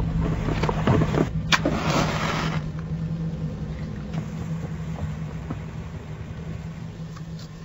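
A low, steady rumbling drone that slowly fades away, with a few clicks and a short hiss about a second and a half in.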